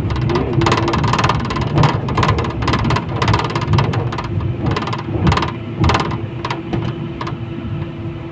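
71-911EM "Lvyonok" tram heard on board while running along the track: a low rumble with frequent clacks and rattles from the wheels and body, and a steady whine holding through the second half. It gets quieter toward the end.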